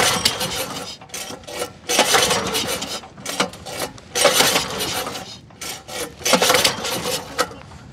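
Pull-start cord of a small boat engine yanked four times, about every two seconds, each pull a rasping whirr, with the engine not catching. The engine is flooded with fuel.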